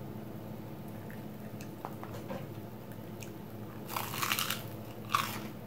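Biting into a crisp breaded fried cheese stick: a crunch of the fried crust about four seconds in, then a shorter crunch about a second later.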